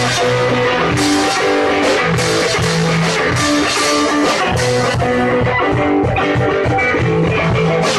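Rock music, punk by the look of it: guitar, bass and a drum kit playing a steady beat.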